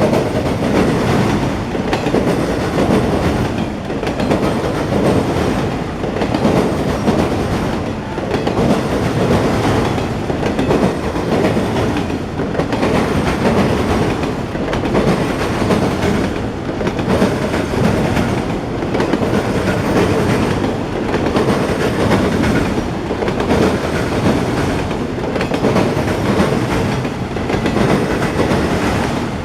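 Freight train of autorack cars rolling past: a steady rumble and clatter of wheels on rail that swells and dips about every two seconds as each car goes by.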